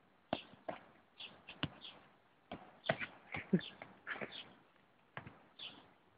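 A quick, irregular run of sharp taps and thumps as the large plastic ball is kicked and nudged about on the grass, mixed with short high squeaks.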